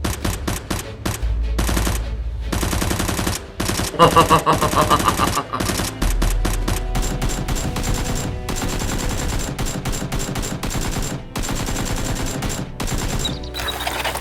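Rapid automatic gunfire, long bursts of shots fired in quick succession, over background music with a steady bass.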